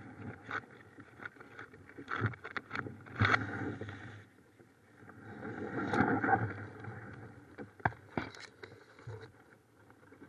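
Kayak paddle strokes splashing, with reed stems brushing and scraping along the burlap- and reed-covered kayak as it is pushed through marsh grass. Sharp knocks and rustles throughout, loudest around three and six seconds in.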